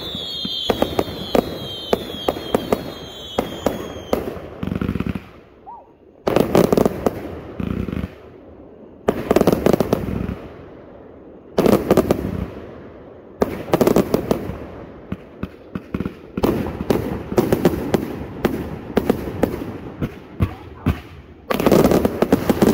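A 260-shot consumer fireworks cake firing. It opens with a fast run of whistling shots, several a second, each whistle falling in pitch. After a short lull come repeated volleys of rapid pops and crackle, one every couple of seconds.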